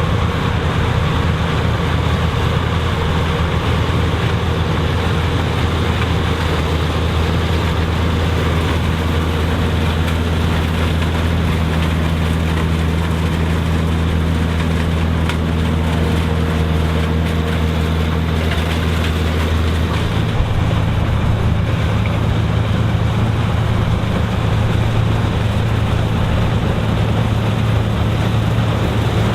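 Vintage combine harvester running steadily while harvesting corn, its engine note shifting about twenty seconds in.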